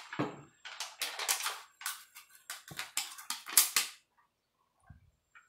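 Thin cut-up drink-can metal crinkling and clicking as the strips are handled and coated with transmission fluid. A quick, irregular run of sharp crackles that stops about four seconds in.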